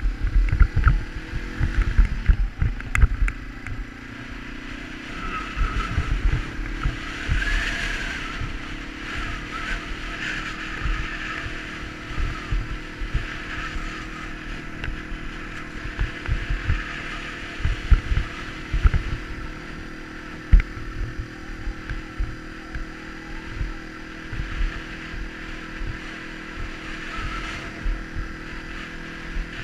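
Yamaha TW200's single-cylinder four-stroke engine running at a steady pace while riding over gravel and sand. Constant irregular low thumps of wind buffeting the microphone.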